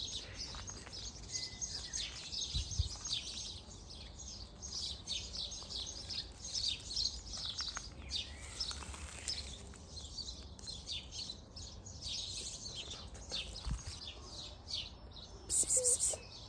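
Small birds chirping continuously, many short high chirps overlapping. A brief, louder, very high hiss about a second before the end.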